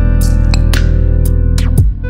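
Instrumental background music: steady held tones with percussion hits.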